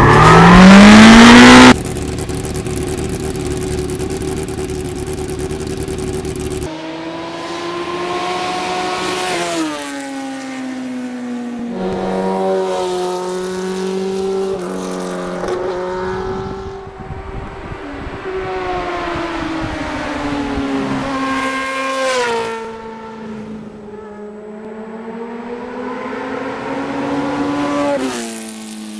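Motorcycle engine accelerating hard past the camera, its pitch climbing and then dropping at each gear change, over and over. It opens with a very loud rising rev, followed by a few seconds of steady noise before the engine notes come in.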